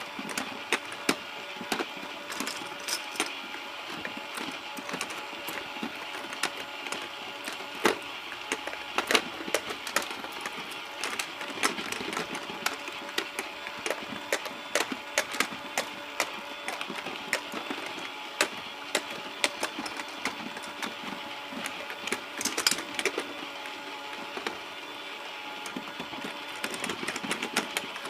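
Small battery motor of a toy fishing game whirring steadily as the plastic pond turns, with frequent irregular plastic clicks and taps throughout.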